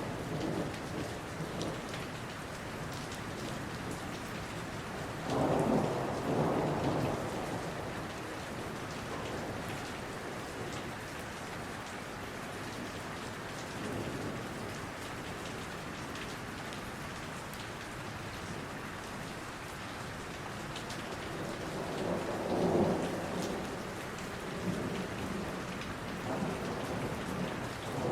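Steady rain falling in a forest, with two rumbles of thunder, one about five seconds in and another a little past twenty seconds in.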